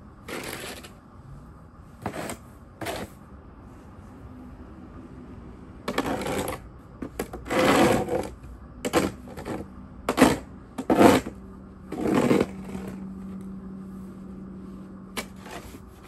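Plastic snow shovel scraping and scooping packed snow and ice, in about a dozen irregular strokes of differing length, the longest and loudest near the middle.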